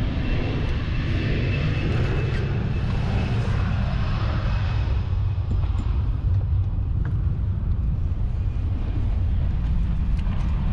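Wind buffeting the microphone: a steady low rumble, with a lighter hiss above it that fades out about halfway through.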